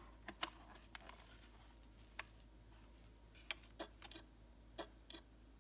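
Light clicks and taps of hard plastic as a hand presses and handles a Playskool Big Frank talking toy, irregularly spaced, with near silence between them.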